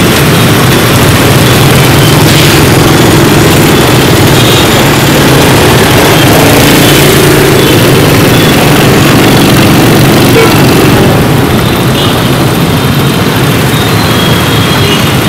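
Honda Win motorcycle's single-cylinder four-stroke engine running while riding in dense scooter traffic: a steady low engine note under a constant rush of road and wind noise. The sound eases a little about two-thirds of the way through.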